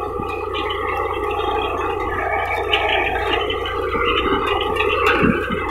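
Tractor engine running under load while the tractor-drawn groundnut digger-shaker works through the soil, a steady rough rattling noise with small swells.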